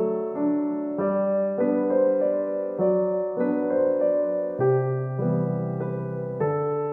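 Background piano music: a gentle melody of held notes that change about every half second to second.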